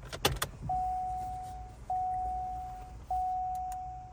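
A few sharp clicks, then the Cadillac CTS-V's electronic warning chime sounding the same single note three times, each one fading out, about once every second and a quarter.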